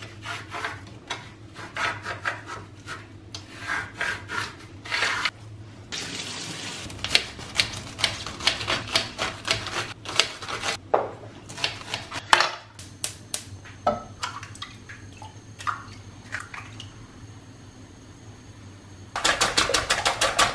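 Kitchen work sounds: clatter and knocks of utensils and dishes, then water running at the sink for several seconds. Near the end a pan starts sizzling loudly as leeks go into butter.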